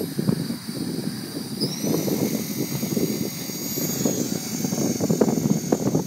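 Electric Align T-Rex 450 RC helicopter's high-pitched motor and rotor whine, rising in pitch about one and a half seconds in as it spools up and climbs away. Loud, gusty wind noise buffets the microphone underneath.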